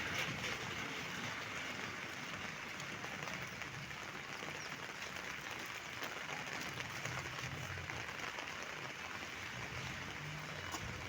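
Heavy rain falling and pattering on surfaces in a steady hiss, with a faint low hum underneath at times.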